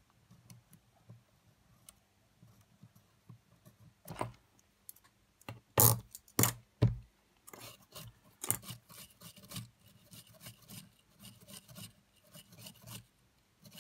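Small metal tool and fingers scraping and ticking on the opened mechanism of a Sony WM-FX811 cassette Walkman while the belt grooves of the capstan flywheel and motor pulley are cleaned. A few sharper knocks come near the middle, then a quick run of small scrapes and ticks.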